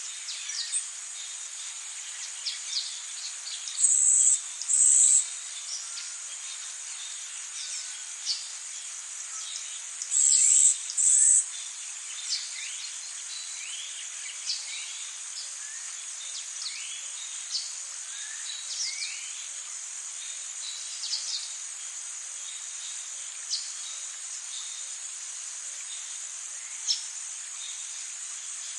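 Forest ambience: a steady, high-pitched chorus of insects with many short bird chirps and calls scattered throughout. Twice, about 4 s in and again about 10 s in, a louder pair of high buzzes stands out above the chorus.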